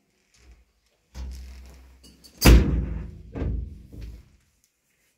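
A dull thud, then one loud sharp bang about two and a half seconds in, then a smaller knock about a second later. These are hard knocks and impacts while a long plastic pipe is handled beside a metal window frame.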